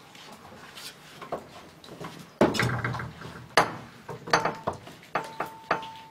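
Wooden lattice door being opened and shut, a series of sharp wooden knocks and clatters, the loudest two about two and a half and three and a half seconds in. A thin steady tone comes in over the last two seconds.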